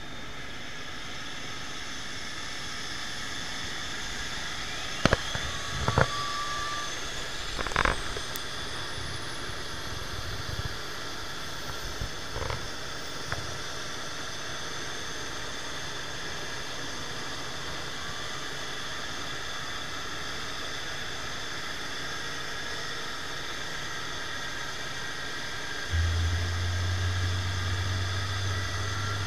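Steady turbine whine from the Airbus A350-900's engines during pushback. About four seconds in, a thinner whine starts rising in pitch and keeps climbing for several seconds, as of an engine spooling up. A few sharp knocks come between about five and eight seconds in, and a low hum sets in near the end.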